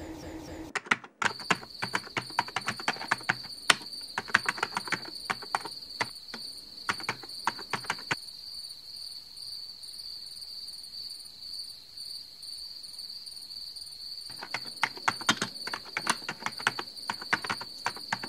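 Quick, irregular clicks of typing on a laptop keyboard, in two runs with a pause of several seconds between them, over a steady high-pitched tone.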